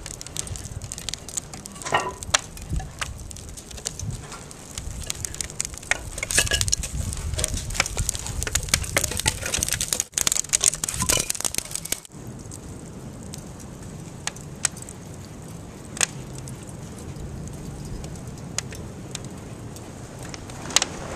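Wood fire burning inside an anagama kiln's firebox, crackling and popping over a low steady rumble. About halfway through the pops thin out and the low rumble carries on with only occasional pops.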